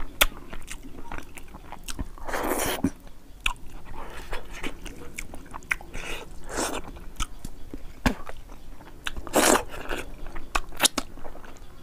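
Close-up mouth sounds of a person eating boiled fish head and rice: quick chewing and lip-smacking clicks throughout, with three longer, louder eating sounds about two, six and a half, and nine and a half seconds in.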